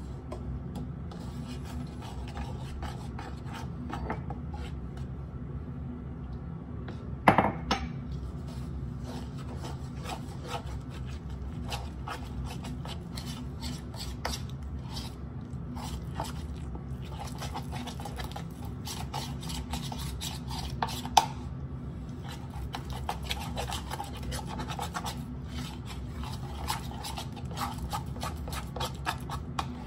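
A utensil scraping and stirring a thick paste of flour and apple cider vinegar for a sourdough starter in a plastic bowl, in quick repeated strokes. There is a sharp knock about seven seconds in and another about twenty-one seconds in.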